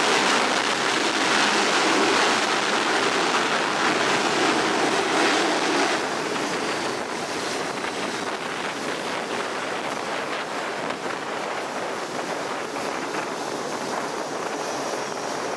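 Jet fighter at full power launching off an aircraft carrier's steam catapult: a steady rushing noise that drops a little about six seconds in as the jet climbs away.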